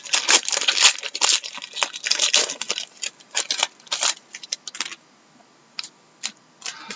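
Plastic wrapping crinkling and tearing in rapid bursts as a sealed trading-card box is opened, dying down about five seconds in to a few soft clicks and taps.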